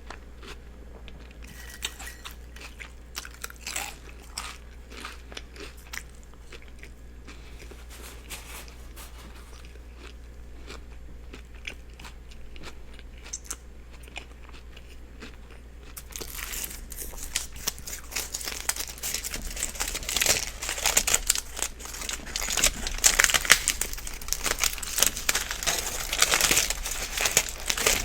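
Close-miked chewing and biting of a turkey and cheese sub with lettuce, tomato and onion, with scattered mouth clicks. About halfway through it becomes much louder and denser, a steady run of crunching and crinkling.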